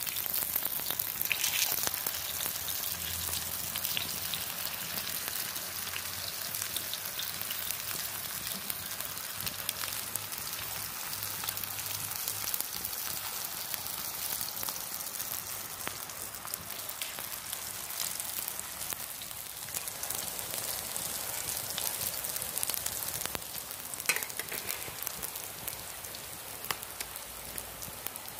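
Beef chapli kababs sizzling on a tawa, over the steady hiss of heavy rain falling on wet pavement.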